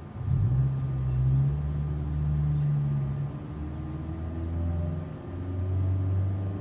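Loud engines of passing road traffic: a low engine drone starts abruptly, then gives way about halfway through to a second engine whose pitch rises slowly as it accelerates.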